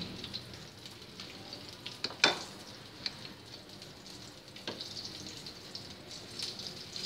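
Chicken pieces deep-frying in hot oil: a steady crackling sizzle. There is a sharp tap about two seconds in and a fainter one just before five seconds.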